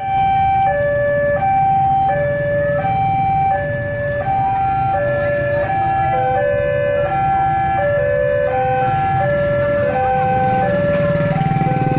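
Railway level-crossing warning alarm: an electronic two-tone signal alternating high and low, each tone about 0.7 s long, with more overlapping tones joining about halfway. It is the warning of an approaching train, over a low rumble of waiting vehicle engines that grows near the end.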